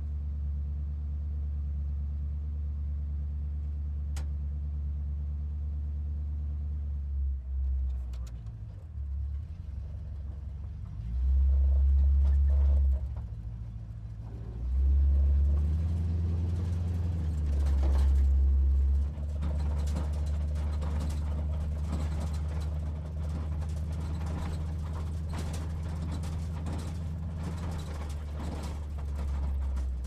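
Muscle car engine idling steadily, revved three times in the middle of the stretch, each rev lasting a second or two and clearly louder, dropping back to idle after each.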